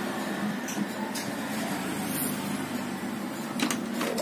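A steady mechanical hum, with a few light clicks and taps during hand soldering on a circuit board.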